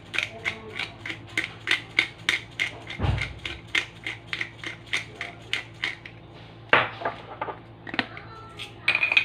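Hand pepper grinder being twisted over a bowl, its grinding mechanism crunching out even clicks about three a second. The clicks stop about six seconds in, with a dull thump about three seconds in and a few stray clicks after the grinding stops.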